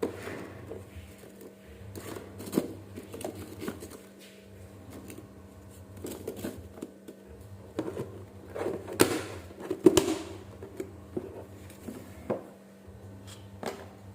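Household handling sounds: scattered light clicks, taps and knocks of objects and utensils being moved, with a denser clatter of knocks about nine to ten seconds in, over a steady low hum.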